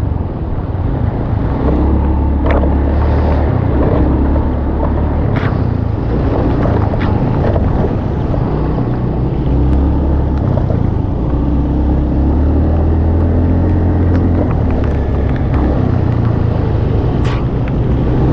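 A motor engine running steadily at a fairly constant speed, with wind on the microphone and a few short knocks.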